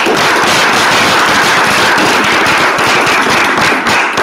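Audience applauding loudly, a dense patter of many hands clapping.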